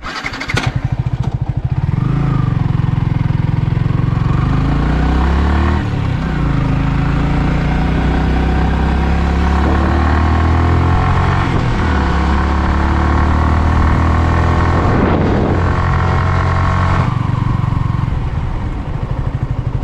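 Yamaha R15 V3's single-cylinder engine running under way on a ride, its pitch rising and dropping several times with gear changes, easing off near the end.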